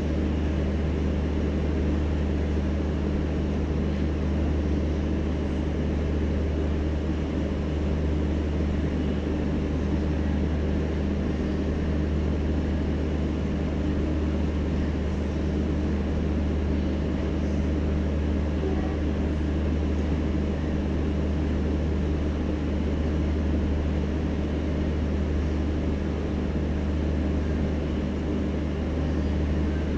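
Steady low drone of diesel generator sets of an End-on-Generation power car running, a constant hum with a few steady overtones.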